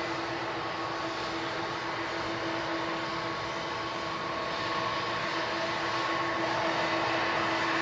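Boeing 777-200ER jet engines running: a steady whine of several held tones over a continuous rush of noise, growing slightly louder toward the end.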